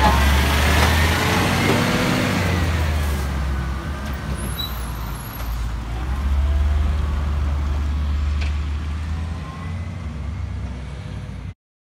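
Side-loader garbage truck's diesel engine pulling away and driving off, with a whine that shifts in pitch in the first few seconds. The engine grows louder again about six seconds in, and the sound cuts off suddenly near the end.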